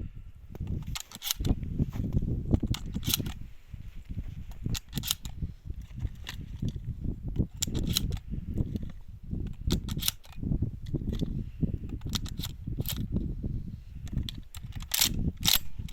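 Shotguns firing, many shots going off at uneven intervals, over a steady low rumble.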